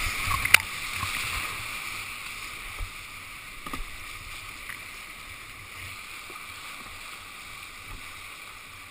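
Whitewater rushing around a kayak as it runs a rapid, with splashing and a sharp knock about half a second in. The rush fades steadily as the boat comes out into calmer water.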